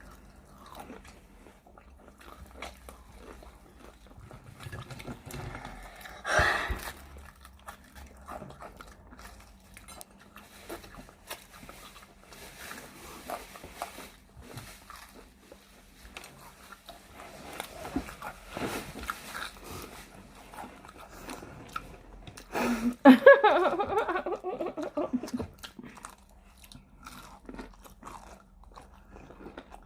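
Close-up chewing and biting on crispy fried chicken hot wings: irregular crunches and small clicks of breading and bone, with a louder burst about three quarters of the way in.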